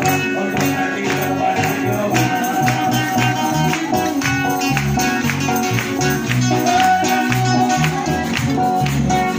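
Live praise-band music played loud through a PA loudspeaker: electric guitar over pulsing bass notes and a steady beat.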